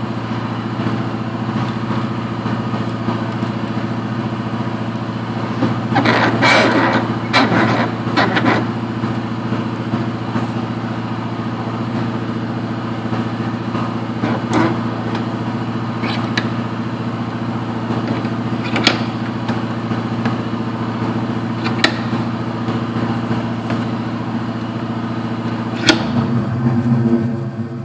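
A machine drones steadily at one even pitch and cuts off near the end, with metal clatter about six to eight seconds in and single sharp clicks later as a steel wheel hub is handled and clamped in a bench vise.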